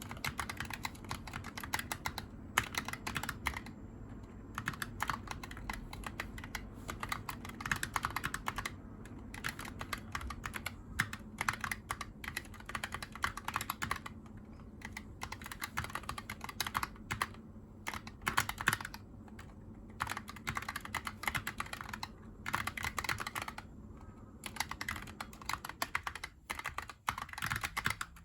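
Razer Huntsman Tournament Edition keyboard, Japanese layout, being typed on: fast runs of key clicks from its optical linear switches, broken by short pauses.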